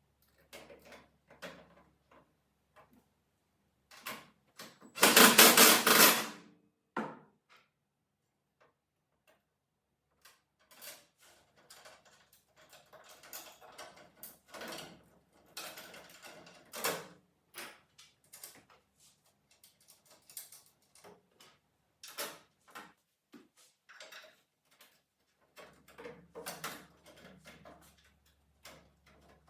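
Scattered clicks, knocks and clatter of tools and metal parts being handled, with one loud noisy burst lasting about a second and a half about five seconds in.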